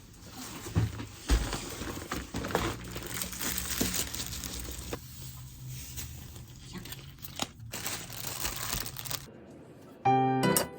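Crinkling and rustling of something handled by hand, with many small crackles and a few sharp clicks. It stops about nine seconds in.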